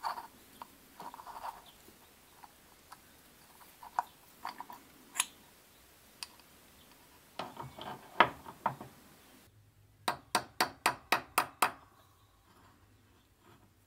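Light metallic clicks and knocks as the steel parts of a Sachs Torpedo three-speed hub are handled and fitted. Near the end comes a quick, even run of about eight sharp metal taps at the hub.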